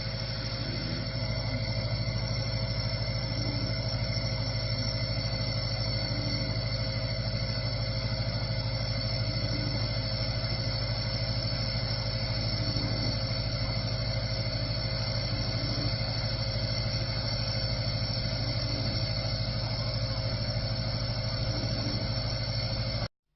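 Steady mechanical drone with several constant tones, unchanging throughout, cutting off abruptly just before the end.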